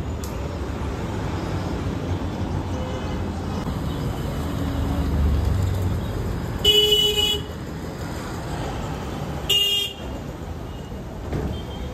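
Steady low rumble of street traffic, with a vehicle horn honking twice about three seconds apart; the first honk lasts under a second and the second is shorter.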